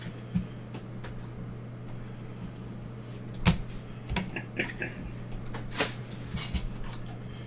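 Scattered knocks and scrapes of sealed trading-card boxes being handled and moved on a table, the loudest knock about three and a half seconds in, over a steady low electrical hum.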